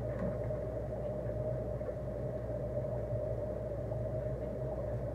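Steady mechanical hum and drone of running aquarium equipment, with a constant midrange tone over a low hum.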